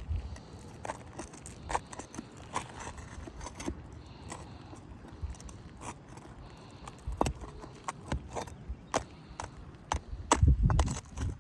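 Irregular sharp clicks and taps of a metal tool prying nails out from under roofing shingles, with nails clinking. A louder low rumble comes in near the end.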